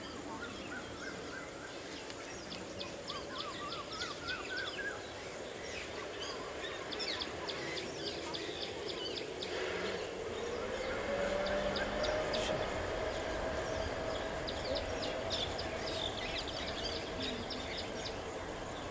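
Boeing 787 Dreamliner's jet engines spooling up for take-off: about halfway through, a rising whine and a low rumble swell in as the airliner starts its take-off roll. Birds chirp throughout.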